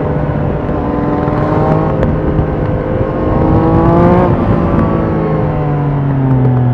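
Triumph Trident 660's inline-three engine on its stock exhaust, running under way: the engine note climbs a little until about four seconds in, then drops as the throttle closes and keeps falling gradually.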